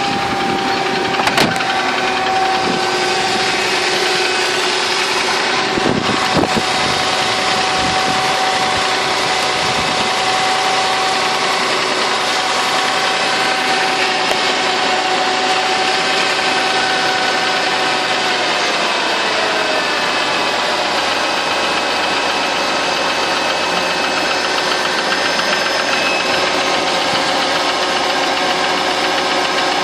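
Mercedes-Benz W211's M112 V6 engine idling with a knock. The idle speed eases down slightly a little past halfway, and a couple of short clicks come in the first few seconds.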